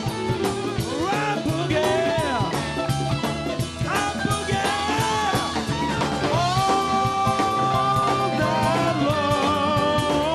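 Live rock band playing an instrumental boogie passage: electric lead guitar with bending notes and a long held note, over a steady drum beat, bass and keyboard.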